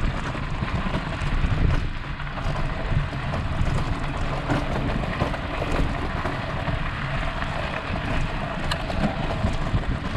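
Trek 1120 bike's tyres rolling over a gravel trail, with wind rumbling on a handlebar-mounted microphone. There is a steady noise and an occasional faint click.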